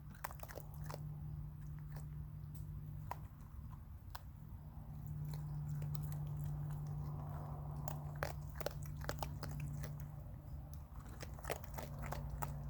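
Raccoons chewing dry hard pet food, with many irregular sharp crunches, over a steady low hum.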